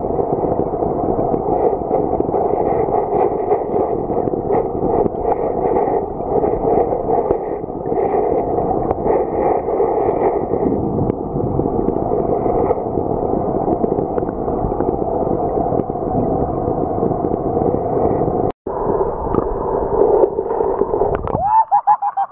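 Muffled, steady rush of flowing water picked up by a camera held under the water, with a gurgle of bubbles near the end as the camera nears the surface.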